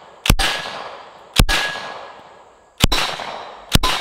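Thompson 1928 submachine gun in .45 ACP fired in semi-auto: four single shots roughly a second apart, each followed by a long fading echo.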